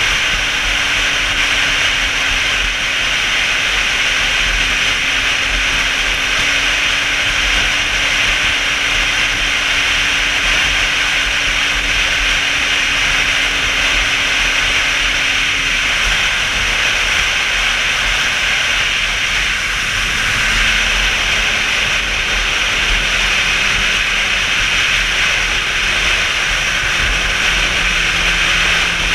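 Motorcycle riding at road speed: wind rushing over the camera's microphone, with a faint steady engine note underneath that drops in pitch a little after halfway through and keeps sinking toward the end.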